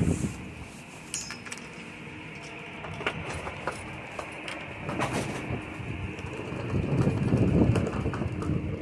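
Footsteps climbing outdoor steps, irregular light knocks over a steady outdoor hiss. In the last couple of seconds wind gusts on the microphone, getting louder.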